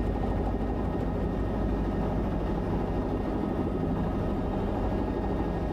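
Bell 505 helicopter's Arrius turboshaft engine and rotor running at a steady hum, heard from inside the cabin.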